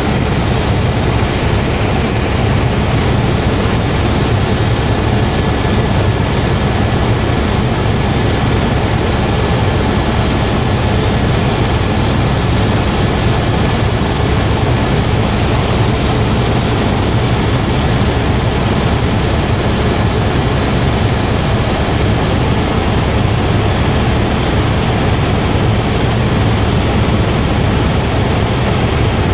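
Helicopter cabin noise in flight: a loud, steady rotor and engine drone with a faint steady whine above it.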